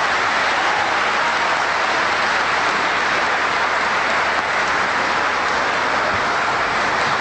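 Large audience applauding steadily in a big hall, a dense even clapping.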